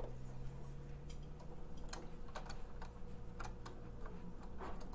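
Faint, scattered clicks and taps of an oiled cotton swab and fingertips working along the metal carriage rail and plastic body of a Silhouette Cameo 4 cutting machine, as the rail is lubricated. A faint steady low hum runs underneath.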